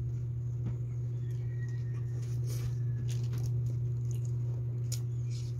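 Hands picking through a pile of boiled crab and shrimp, making faint scattered clicks and squishes, over a steady low hum.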